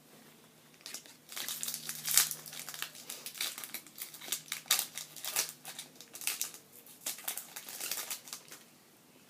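Foil wrapper of a Pokémon trading card booster pack crinkling as the pack is opened, a run of sharp crackles that starts about a second in and stops shortly before the end.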